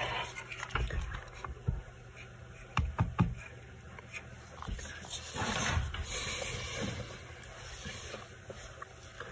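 Graphics card parts being handled on a workbench: a few sharp clicks and knocks in the first few seconds, then a rough rubbing or scraping sound lasting about two seconds past the middle.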